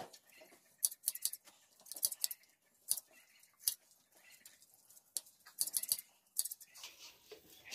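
Hand blade shears snipping through a sheep's wool fleece: crisp metal snips at an uneven pace, with a quick run of several snips about two-thirds of the way through.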